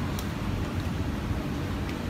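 Steady low background rumble, with two faint light clicks, one just after the start and one near the end.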